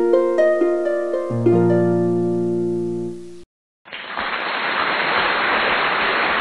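Channel intro music of plucked string notes, several ringing over one another with a low note coming in about a second in, stopping after about three and a half seconds. After a short gap, a steady loud hiss fills the rest and cuts off suddenly.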